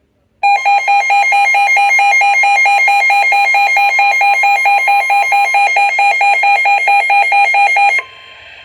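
Weather alert radio's alarm going off for an incoming severe thunderstorm warning: a loud, rapidly pulsing electronic beep that starts abruptly and cuts off near the end, leaving a faint steady tone.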